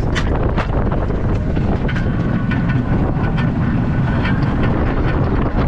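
Wooden roller coaster train rolling along its track, a steady low rumble with scattered sharp clicks and clacks from the wheels. Wind rushes over the microphone throughout.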